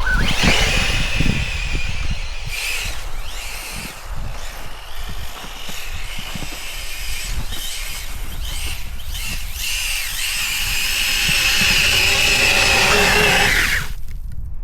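Brushless electric motor of a Hobao Hyper VS2 RC buggy on paddle tires in snow, whining as it accelerates and changes speed. Near the end it holds a loud, steady high whine, which fits the paddles spinning while the buggy is bellied and stuck in deep snow, then cuts off sharply.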